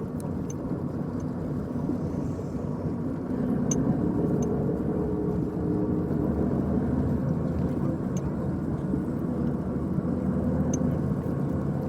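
Steady rumble of a vehicle's engine and running gear heard from inside the cabin, with a faint hum and a few light ticks.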